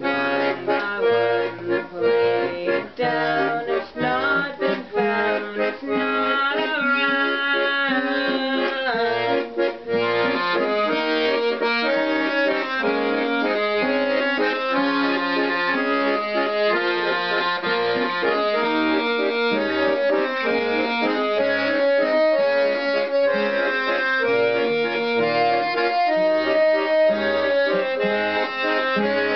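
Piano accordion playing chords and melody over a strummed acoustic guitar. The chords are short and choppy for about the first ten seconds, then give way to smoother held notes.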